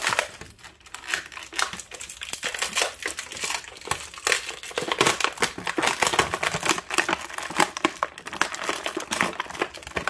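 Clear plastic packaging bag crinkling loudly as an action figure is worked out of it, a dense, irregular crackle throughout.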